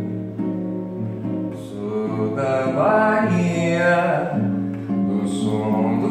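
Acoustic guitar accompanying a slow MPB song, with a singing voice that swells about two and a half seconds in into held notes with vibrato, then eases off.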